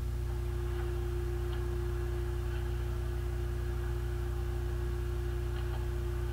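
Steady electrical hum on the recording: a low drone with a single steady higher tone above it, unchanging throughout.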